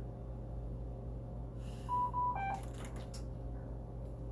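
Dräger ventilator beeping during its breathing circuit check: about two seconds in, two short even beeps, then a quick run of tones stepping down in pitch, followed by a few sharp clicks. A steady low machine hum runs underneath.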